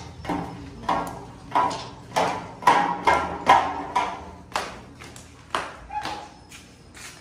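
Footsteps going down a steel-framed staircase, about two steps a second. Each step lands with a sharp clank and a short metallic ring. The steps grow fainter near the end as the walker reaches the floor.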